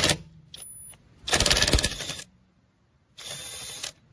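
Boen 1/2-inch brushless cordless impact wrench hammering in two bursts: about a second long starting just over a second in, then a shorter one near the end. It is loosening a truck lug nut.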